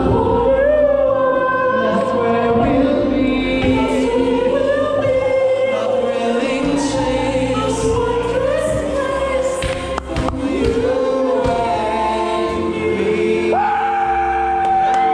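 Two men singing loudly together into a handheld microphone over music, holding one long note near the end.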